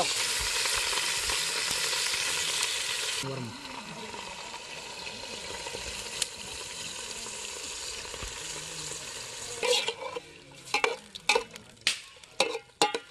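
Raw mutton pieces sizzling in hot oil in an aluminium pot, a steady hiss that drops suddenly to a quieter level about three seconds in. From about ten seconds in, a metal ladle clicks and scrapes against the pot several times as the meat is stirred.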